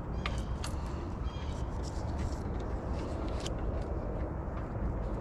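Steady low background rumble with a handful of light clicks and ticks.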